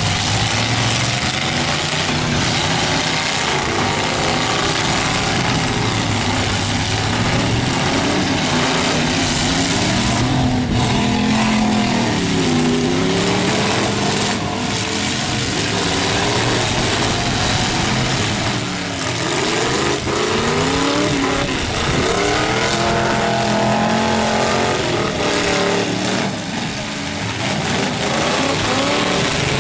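Demolition derby cars' engines revving up and down, several at once, over a loud steady din of running engines.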